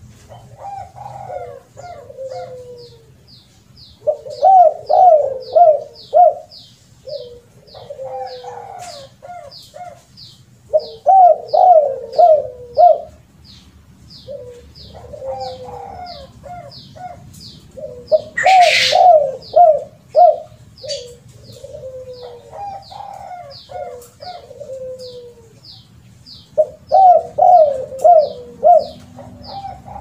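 Spotted dove cooing: four loud phrases of quick, rising-and-falling coos about seven seconds apart, with softer coos between them. A steady high chirping, about three chirps a second, goes on behind it, and a brief hiss comes near the middle.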